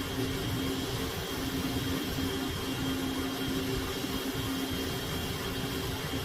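An electric machine motor running steadily, with a constant low hum and a faint high whine over a hiss.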